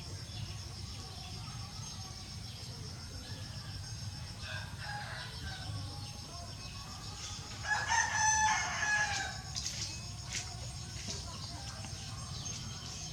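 A rooster crows once, about eight seconds in: a single pitched call lasting about a second and a half, over a steady low hum.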